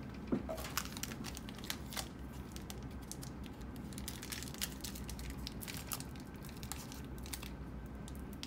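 Foil trading-card pack being torn open and its wrapper crinkled by hand: a run of irregular crackles and rustles.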